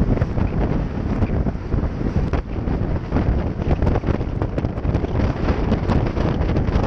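Wind buffeting the microphone of a camera on a moving Honda PCX 125 scooter: a dense, steady low rumble that flutters irregularly, covering the engine and road noise beneath.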